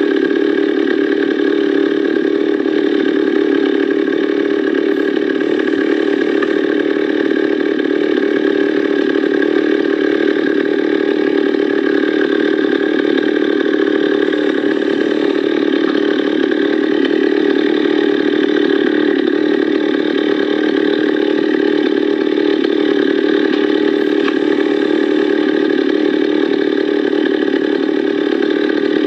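Echo CS-440 EVL two-stroke chainsaw engine running steadily at idle, with no revving.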